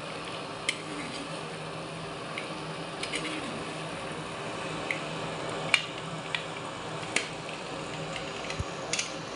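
Chicken pieces frying in their masala gravy in a metal pan, with a steady sizzle and bubble, while a metal spoon stirs and now and then clicks sharply against the pan.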